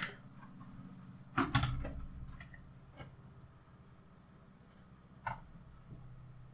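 Quiet handling sounds: a soft thump with a couple of clicks, then a few single light clicks as a folding knife is set down on the metal platform of a digital kitchen scale, the last click about five seconds in. A faint steady hum sits underneath.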